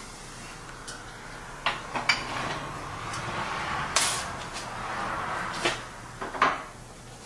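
Sharp clunks and knocks from a pneumatic arch-forming press as wooden strips are pressed against its metal form and clamped, about five in all, the loudest near the end. A hiss of air rises and falls between them in the middle of the stretch.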